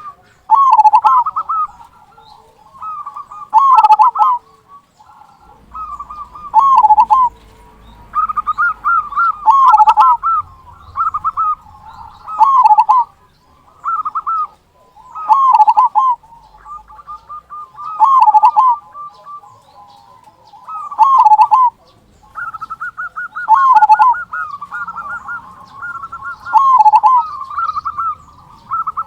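Male zebra dove (perkutut) singing its cooing song over and over, about one phrase every two to three seconds: a quick rolling run of notes ending in a deep 'kung' note.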